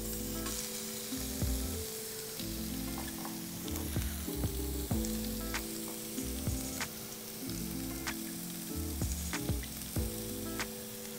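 Lobster tails searing in olive oil in a cast-iron skillet: a steady sizzle with scattered sharp pops. Background music with held low notes plays underneath.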